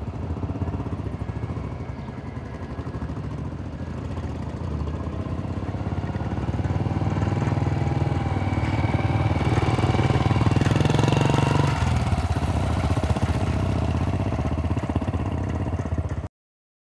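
A motor vehicle's engine running steadily, growing louder to a peak about ten seconds in, then cutting off suddenly near the end.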